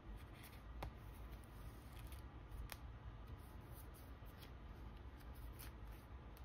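Clear plastic binder pocket pages and card sleeves rustling and crinkling as sleeved photocards are handled and slid into the pockets, with a few light sharp clicks and taps.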